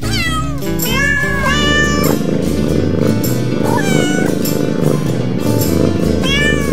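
Kittens meowing in high, bending calls: several in the first two seconds, one around four seconds in and another near the end, over background music.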